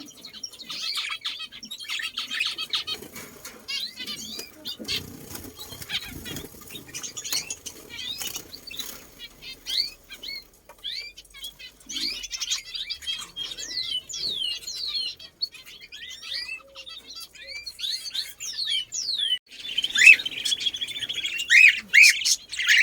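A flock of small birds chirping and twittering without pause, with wings fluttering. The calls grow louder and busier near the end.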